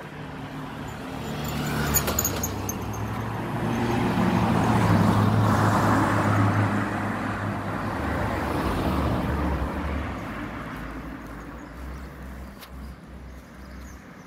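A car driving past on the road: engine hum and tyre noise swell to a peak about five seconds in, rise a little again, then fade away.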